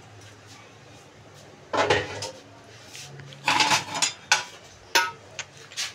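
A metal spoon knocking and scraping against a metal cooking pot of boiling rice and water as it is stirred: a string of sharp clanks, some ringing briefly, starting about two seconds in.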